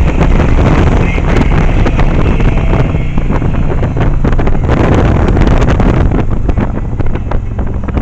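Heavy wind buffeting on the microphone over the Yamaha 1100 motorcycle running at road speed, a loud, gusty rush with the engine's low drone underneath.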